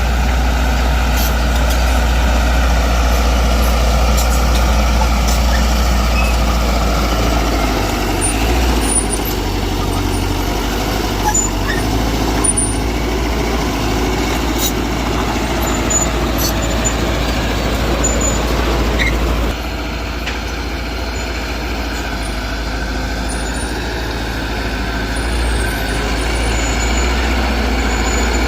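Heavy diesel earthmoving machinery running steadily with a deep engine rumble. It eases off to a lower level about two-thirds of the way through, with faint short high squeaks scattered over it.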